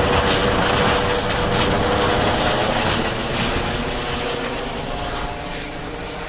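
Air ambulance helicopter flying overhead and away, its rotor and engine noise slowly fading over the last few seconds.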